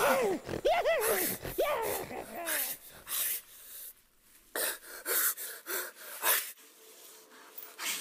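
A voice giving a run of high cries whose pitch rises and falls, fading out about three seconds in, followed by short breathy gasps.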